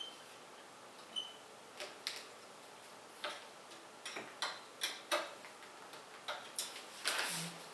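Irregular light clicks and taps of computer parts being handled and fitted during a PC build, with a short rustle about seven seconds in.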